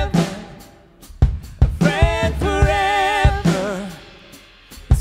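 Worship song: a singer holds notes over drums and a band, with short pauses between phrases.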